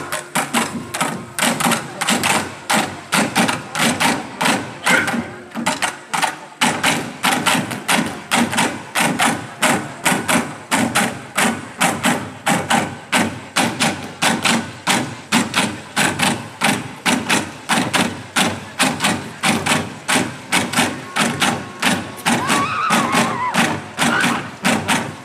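A massed group of Naga dancers chanting together over a steady beat of sharp strikes, about two a second, kept up throughout.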